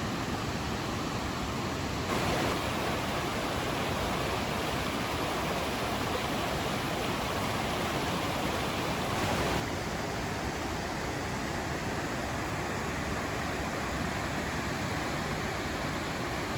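Steady rush of a large waterfall, Wintergreen Falls on the Toxaway River, plunging into its pool. It grows a little louder and brighter about two seconds in and drops back just under ten seconds in.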